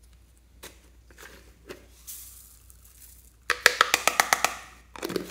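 Slime being squeezed out of a plastic cup: a few light clicks and a soft rustle from the container being handled, then about a second of rapid sharp pops and crackles, and a squelch near the end.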